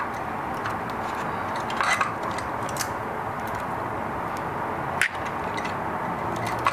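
Light clicks and rattles of a wire and small parts being handled inside an opened coffee grinder's housing, over a steady background hiss. The sharpest clicks come about two seconds in and about five seconds in.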